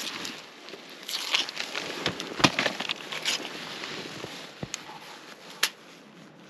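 Aluminum foil crinkling and rustling as it is handled and folded, with irregular sharp crackles. The loudest crackle comes about two and a half seconds in.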